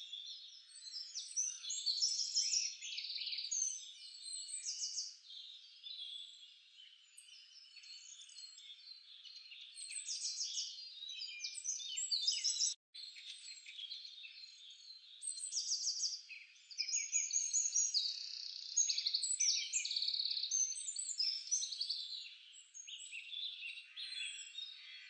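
Many small birds chirping and twittering together, a dense chorus of short high calls, broken off for a moment about halfway through.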